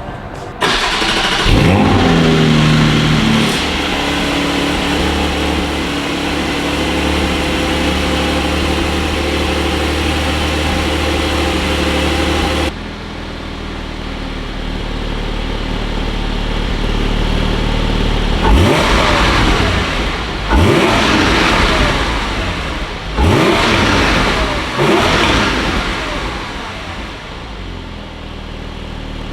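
Porsche 718 Cayman GT4's 4.0-litre flat-six, fitted with Akrapovic titanium OPF-delete link pipes and the stock muffler, starting up with a brief flare of revs and settling to a steady idle. After a cut, it revs four times, each rising and dropping back quickly.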